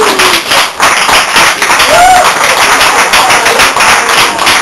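Audience clapping, dense and loud, with a drawn-out shouted cheer at the start and another about two seconds in.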